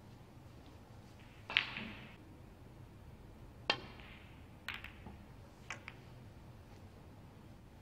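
A snooker shot: the cue tip strikes the cue ball, then about two seconds later come three sharp clicks a second or so apart as the ball hits a cushion and then the reds, and the reds knock together.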